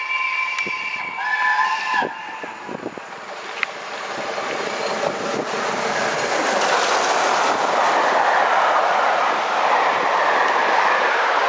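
BR Standard Class 7 4-6-2 steam locomotive No. 70000 Britannia sounding its whistle, a held note of several tones that stops about two seconds in. It then runs through the station at speed with its coaches, a rushing noise of exhaust and wheels on rail that grows steadily louder from about four seconds in.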